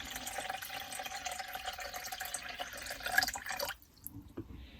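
Canned chicken broth poured into a bowl: a steady splashing pour that stops suddenly about three and a half seconds in.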